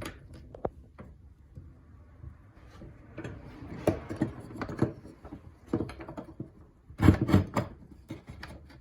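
Glued wooden cabinet door pieces being clamped and handled: scattered wooden knocks and clicks with some rubbing, and a louder cluster of knocks about seven seconds in.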